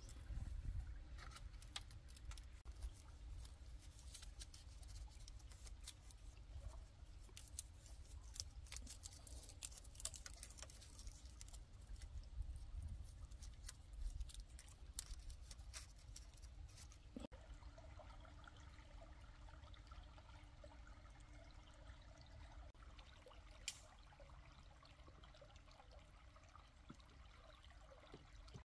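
Faint scattered small clicks and light crackling over a low rumble, busiest in the first half.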